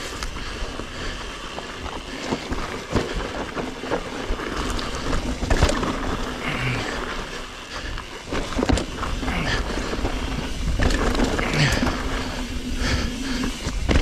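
Mountain bike riding down a loose dirt trail: tyres rolling and crunching over dirt and stones, with the bike knocking and rattling over bumps throughout, over a steady rumbling rush of noise.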